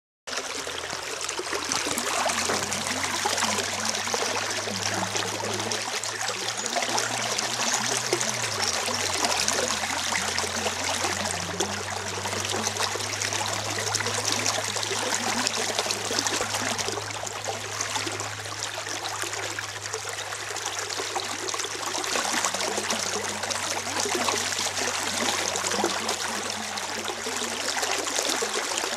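Stream running under a bridge: a steady rush and trickle of flowing water. Beneath it is a low, steady hum of a few notes, which the uploader attributes to the water hitting the bridge. The hum's notes shift about eight seconds in.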